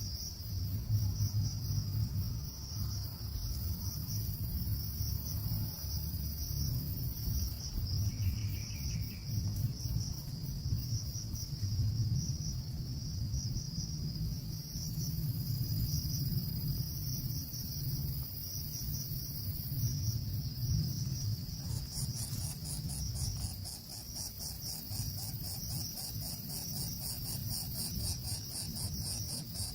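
Steady high-pitched insect drone, like crickets or cicadas, with a low rumble beneath. About two-thirds of the way through, a second, higher insect joins with a fast, even pulsing.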